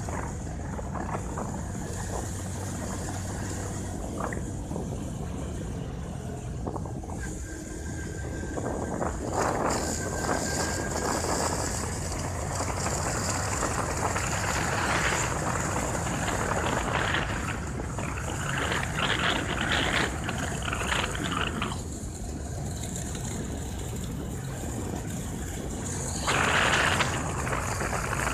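Steady rumble of a vehicle driving, tyre and engine noise with wind on the microphone, swelling into louder rushes of noise at times, the loudest briefly near the end.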